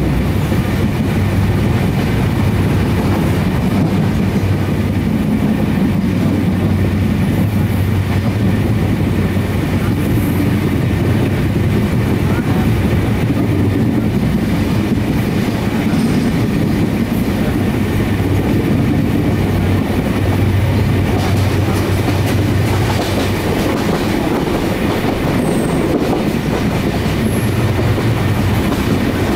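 Passenger train coach running at speed, heard from inside: a steady, deep noise of wheels on the rails and the coach body, with no let-up.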